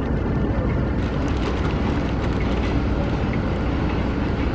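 Freight train of tank cars and hopper wagons rolling slowly away on the rails, a steady low rumble with scattered light clicks from the wheels.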